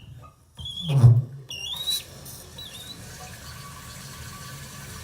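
Toilet flushed about a second in, with a loud rush, then the tank refilling with a steady hiss of running water. The fill valve is slow, and the plumber says it needs replacing.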